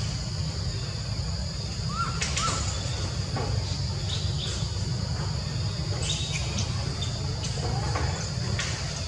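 Outdoor ambience dominated by a steady, high-pitched insect drone, with a low rumble beneath it. A couple of short chirps come about two seconds in, and faint clicks are scattered through.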